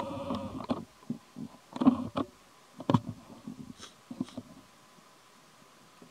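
A fly buzzing close by, cutting off just under a second in, then scattered soft knocks and crackles with quiet gaps between them.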